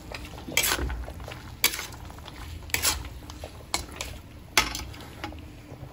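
Metal spatula scraping and clanking against a metal pan as elbow macaroni and chicken are stirred and tossed, a sharp stroke about once a second.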